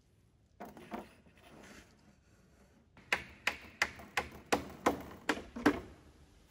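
Hammer driving a nail into wooden framing: a run of about eight sharp strikes, a little over three a second, starting about three seconds in. Before it come a couple of fainter knocks.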